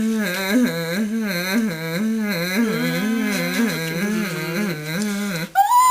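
A young voice sings a wordless, warbling tune, its pitch rocking up and down about twice a second, then jumps to a short, high, held squeal near the end.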